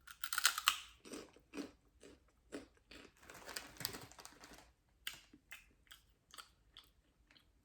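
Stale ring-shaped crisps being bitten and chewed close up: irregular dry crunches, dense at first and again midway, thinning to single crunches near the end.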